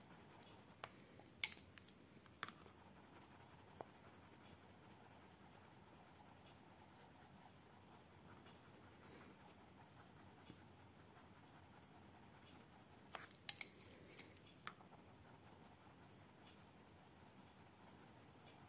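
Faint scratching of a Derwent Chromaflow coloured pencil shading on paper, with a handful of light ticks, a few near the start and a cluster about two-thirds of the way through.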